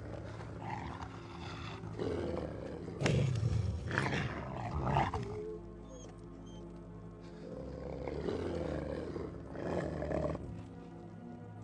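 Wolves growling in two spells, one starting about two seconds in and another near the end, over a steady dramatic film score.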